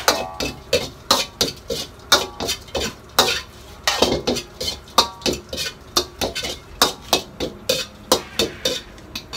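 Metal spatula striking a wok while stir-frying, in quick, uneven strokes about three a second, some of them ringing.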